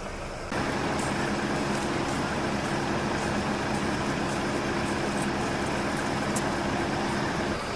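An engine running steadily at an even speed, its hum unchanging; it cuts in about half a second in and stops abruptly near the end.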